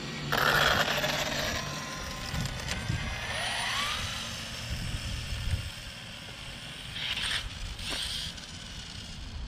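Electric RC car with a ducted-fan jet pulling away. Its motor and fan whine rises in pitch a few seconds in as it accelerates down the road. There is a loud rushing noise about half a second in, and two short hissy bursts near the end.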